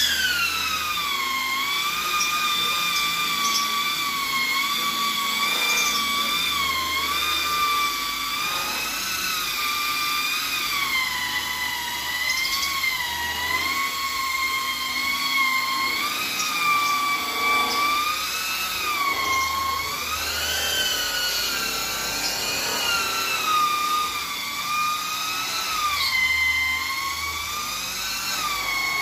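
Electric rotary polisher running with a foam pad on a freshly painted car bumper: a steady motor whine whose pitch keeps wavering up and down.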